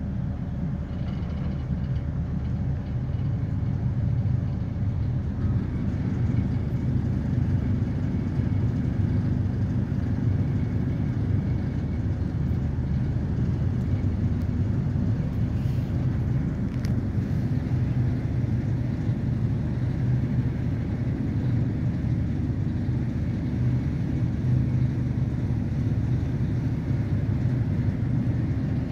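Excursion boat's engine running with a steady low rumble, a little louder after a few seconds, as the boat moves in at the landing stage.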